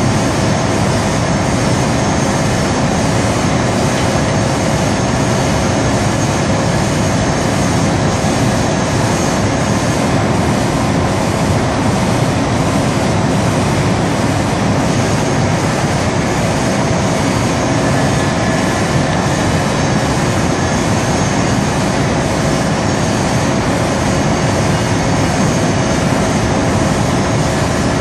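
Loud, steady din of industrial processing machinery running, a broad unbroken rumble with a few faint steady tones over it.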